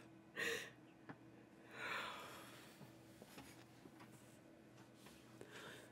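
A woman's breath sounds: a short sharp breath about half a second in, then a long exhaling sigh about two seconds in, over a faint steady hum.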